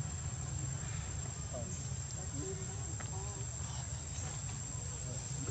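Steady high-pitched insect drone, with a constant low rumble and faint wavering voices in the background.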